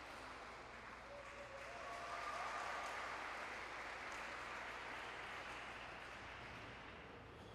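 Audience applauding, swelling about two seconds in and then slowly fading.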